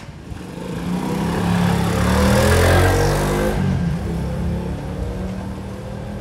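Small motor scooter passing close by, its engine note rising as it approaches and dropping as it goes past, loudest about three seconds in.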